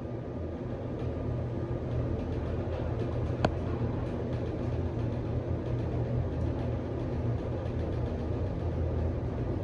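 Hotel passenger elevator cab running: a steady low hum of the car in motion, with a faint click about three and a half seconds in.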